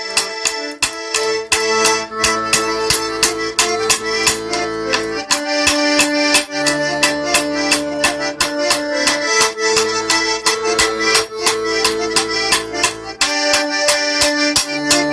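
Accordion playing a lively folk dance tune, its held chords changing every few seconds, with spoons knocked together in a fast, even rhythm of about five clicks a second.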